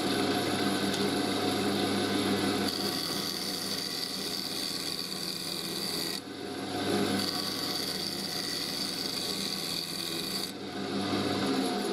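Wood lathe running while a turning tool cuts into the end face of a spinning walnut blank: a steady motor hum under a rough, rasping cutting noise, with a high steady tone during the cuts. The cutting breaks off briefly about six seconds in and again near the end as the tool comes off the wood.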